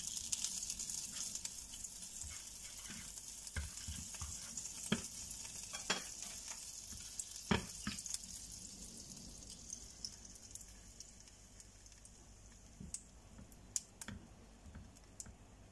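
Butter sizzling as it melts in a hot frying pan, with a few sharp clicks of a spatula scraping and tapping the pan. The sizzle fades in the second half.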